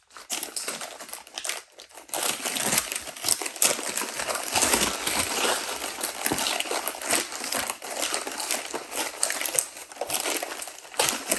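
Packing wrapping crinkling and rustling continuously, full of small crackles, as a camera is unwrapped by hand.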